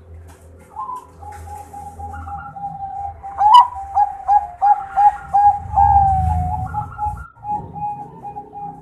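Zebra dove (perkutut, Bangkok song strain) cooing. From about three and a half seconds in comes a quick run of short coos, about three a second, ending in one longer drawn-out coo.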